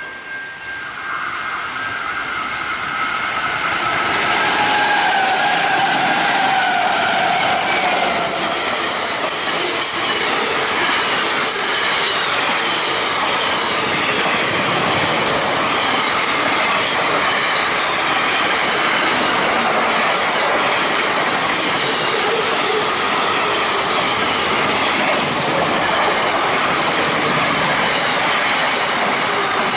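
Freight train passing close by. The sound builds over the first few seconds as the locomotive arrives, then settles into a steady rumble and clatter of wagon wheels over the rail joints. Thin squealing tones from the wheels are heard early on.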